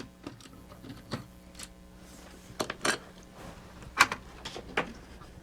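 Scattered light clicks and knocks of small plastic parts being handled as a toy gearbox is opened up, with a cluster about two and a half to three seconds in and the loudest knock about four seconds in.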